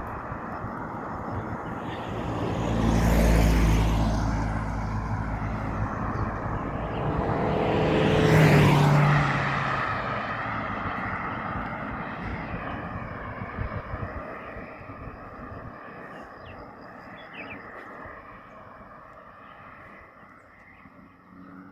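Two motor vehicles pass close by one after another, the engine and tyre noise swelling about three seconds in and again, louder, about eight seconds in, then fading away.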